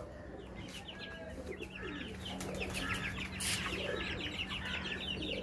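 Birds chirping in the background, with many quick, high, short chirps and a few soft lower calls mixed in, over a faint steady low hum.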